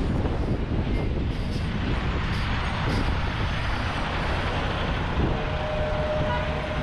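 City road traffic: vehicle engines rumbling and tyre noise. A steady held tone, such as a brake squeal, starts a little after five seconds in.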